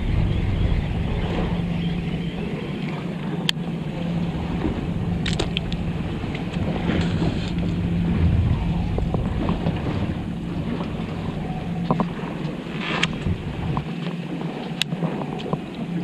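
Small fishing boat's engine running with a steady low hum under wind and sea noise, with a few sharp clicks.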